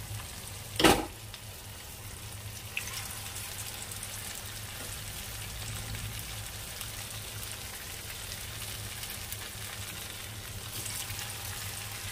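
Batter-coated chicken pieces deep-frying in hot oil, a steady sizzle, with one loud thump about a second in.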